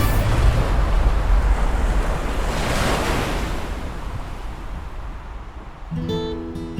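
Whitewater rapids rushing: a steady, dense wash of water noise that swells about three seconds in and then gradually fades. Acoustic guitar music comes in near the end.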